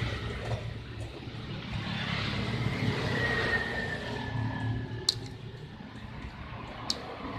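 A motor vehicle passing by over a steady low traffic rumble, swelling and fading over a few seconds with a faint falling whine. Two sharp clicks come about five and seven seconds in.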